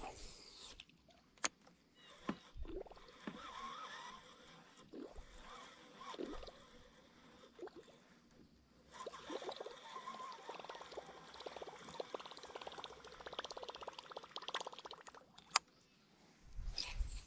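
Water splashing and gurgling around a kayak. From about nine seconds in, a fast, even whirring runs for several seconds as a baitcasting reel winds in a topwater lure. A couple of sharp clicks are heard.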